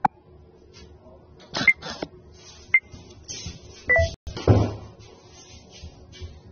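Three short electronic beeps about a second apart from the TikTok app's countdown timer, with a few knocks early on and a louder dull thump about four and a half seconds in.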